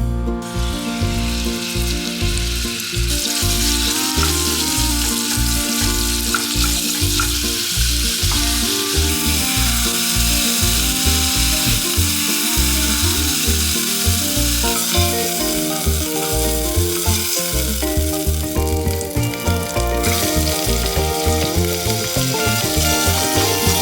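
Food sizzling and frying in a pan, a continuous hiss, with background music playing over it.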